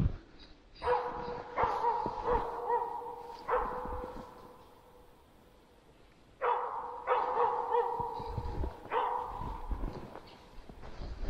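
Laika hunting dog barking in two runs of several barks each, with a short pause between them. It is baying at a black grouse it has found.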